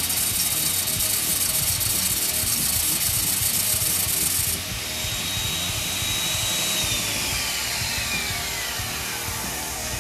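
Angle grinder with a flat sanding disc grinding against a steel brake hub that an electric drill spins like a lathe, a rough scraping hiss over the grinder's high whine. About four and a half seconds in the disc comes off the metal and the scraping stops; the whine runs on, then falls steadily in pitch as the grinder winds down, with the drill still turning.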